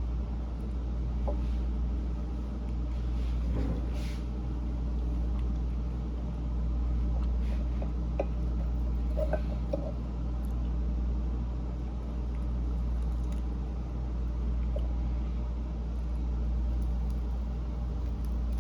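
A person quietly chewing food, with a few small mouth clicks and smacks, over a steady low hum.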